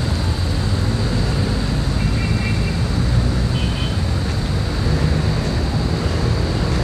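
Steady low rumble of city street background noise.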